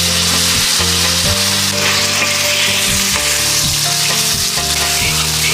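Starch-coated pork slices frying in hot oil with a loud, steady sizzle.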